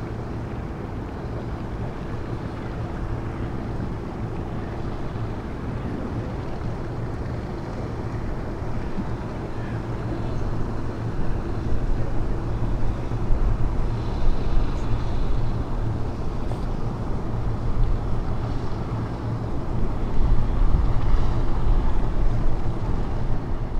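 Steady low drone of a passing river cargo ship's diesel engines, growing louder about halfway through as the stern and funnels go by, with wind rumbling on the microphone.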